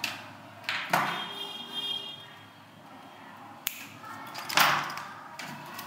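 Hands handling braided power-supply cables and small plastic parts: rustles and light knocks, a short buzzing rasp just after the first second, and a louder clatter about four and a half seconds in as a hand rummages in a plastic tub of small parts.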